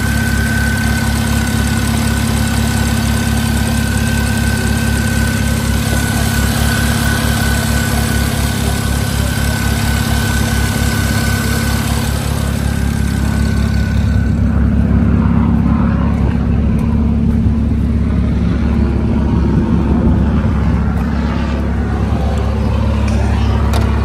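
BMW 335i inline-six engine idling steadily, with a thin high whine over it that stops a little past halfway.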